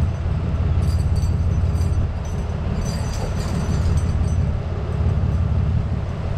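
Tow truck's engine and hydraulic winch running steadily under load, the winch cable pulling the food truck out: a loud, even low rumble with faint clicking above it that comes and goes.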